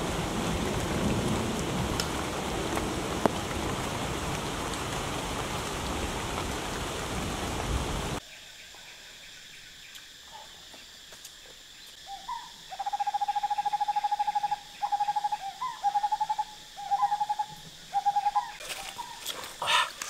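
Steady hiss of rain that stops abruptly about eight seconds in. A few seconds later a clear, trilling call holding one pitch sounds in five phrases, the first long and the rest short. Near the end there are a few sharp cracks.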